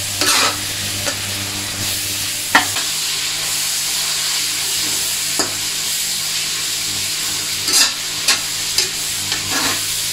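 Pork slivers and wood ear mushrooms sizzling as they stir-fry in soy sauce in a stainless steel wok, with a metal spatula scraping and knocking against the pan several times.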